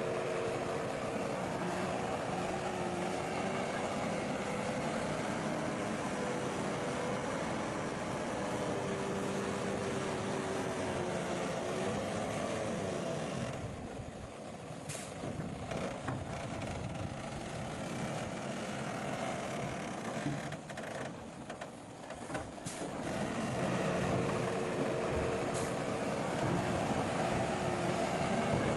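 Heavy truck or construction-machine engines running steadily, dipping in level briefly twice, with a few sharp clicks in the second half.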